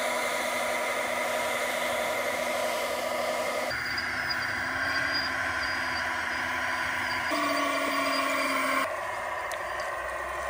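A radio-controlled O&K L25 model wheel loader running under load as it pushes sand and stones with a dozer blade: a steady whine with a low hum. The tone shifts abruptly about four seconds in and twice more later on.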